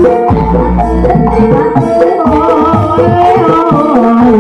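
Live ebeg (Javanese hobby-horse dance) accompaniment music: a fast hand-drum pattern, typical of kendang, under held melodic tones. A wavering higher melody line comes in about two seconds in.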